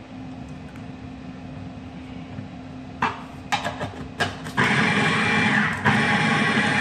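Small electric food chopper: its plastic lid clicks into place, then from about four and a half seconds in the motor runs loud, chopping chunks of green bell pepper, with a short break about a second later as it is pulsed.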